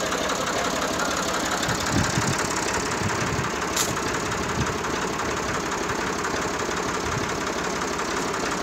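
IMT 540 tractor's diesel engine idling steadily, with a few dull thumps about two to three seconds in.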